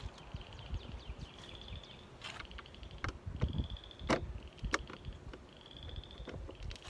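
About four sharp clicks and knocks as a screwdriver works the screws of a car's inner door panel, the loudest about four seconds in. Behind them a high pulsed trill repeats about every two seconds.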